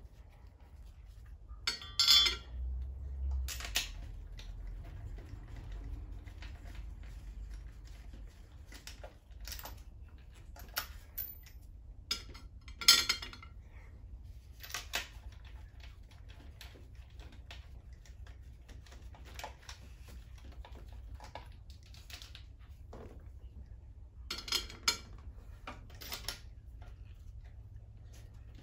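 Metal hand tools clinking and knocking as a long spark plug socket on an extension is fitted and turned on the spark plugs of an engine being serviced. The knocks are scattered and irregular, the loudest about two seconds in and about thirteen seconds in.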